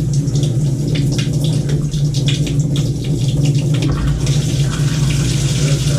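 Water running and spraying from an opened Moen tub and shower valve, with a steady low hum throughout. It starts with scattered clicks and spatter, then turns to a stronger hiss about four seconds in.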